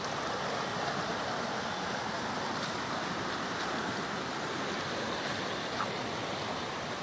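Waterfall rushing, a steady even roar of falling water, with a faint tap just before the end.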